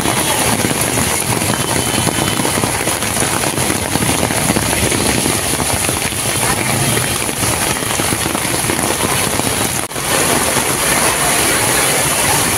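Steady outdoor noise of rain and vehicle engines on a flooded city street. The sound drops out briefly about ten seconds in.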